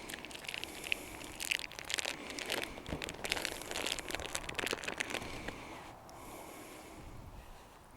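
Plastic wrapping crinkling and rustling as a meat target is handled, in quick irregular crackles for about six seconds, then fading off.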